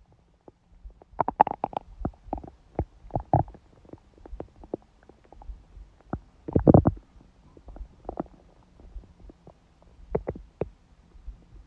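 A woman's stomach growling during her period: irregular gurgles and short pops, with the longest and loudest gurgle about two-thirds of the way through.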